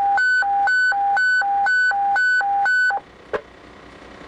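Hi-lo alert tone from the fire radio, alternating between a high and a low pitch about twice a second for about three seconds, then cutting off. A low steady hum and a single click follow.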